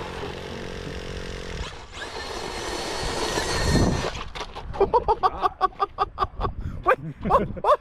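A hobby-grade RC car's motor running and then revving up. From about halfway in comes a rapid series of knocks and clatters as the car tumbles end over end.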